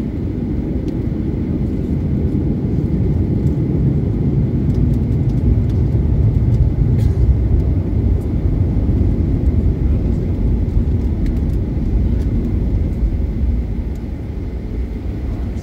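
Cabin noise of a Boeing 737-900ER taxiing, heard from a window seat behind the wing: a steady low rumble of its CFM56-7B engines at taxi power, swelling a little in the middle and easing near the end.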